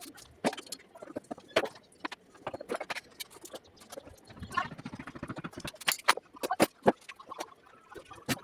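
Hand tools and metal parts clinking and knocking at irregular intervals during scooter repair work, with a short run of rapid rattling clicks about halfway through.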